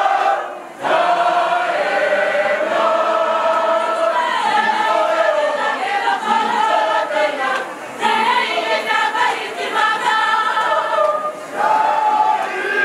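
Large mixed choir of women's and men's voices singing together, the phrases broken by short pauses about a second in and twice later on.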